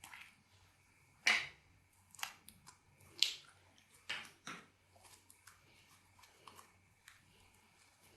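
Slime being squeezed and worked by hand: scattered sticky clicks and pops, loudest about a second in and again about three seconds in.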